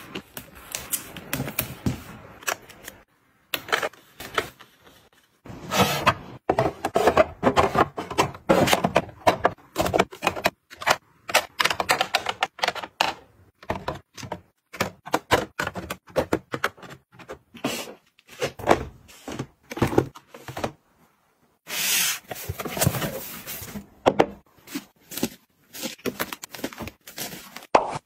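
Hands handling hard plastic storage boxes and organizers, a run of sharp clicks, taps and knocks as the pieces are set in place. Crinkly plastic packaging rustles in places, loudest about two-thirds of the way through.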